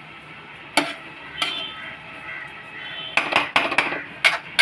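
Metal spoon stirring cabbage and potato sabzi in a metal kadhai, knocking and scraping against the pan: two separate clinks in the first half, then a quick run of clinks near the end.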